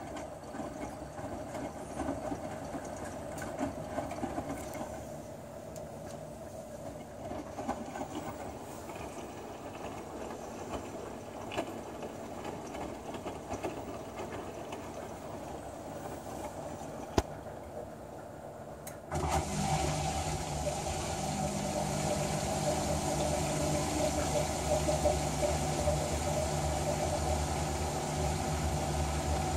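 Hotpoint Ultima S-Line washing machine at the end of a synthetics 40°C wash: the drum turns the wet load with uneven sloshing, a single sharp click comes near the middle, and then, a little over halfway in, the drain pump starts suddenly with a steady hum and rushing water as the machine pumps out the wash water.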